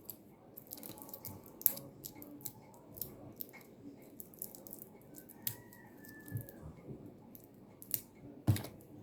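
Scattered small clicks, ticks and rustles from a tool and a twisted-pair network cable being handled as the outer jacket is stripped, with one louder knock near the end.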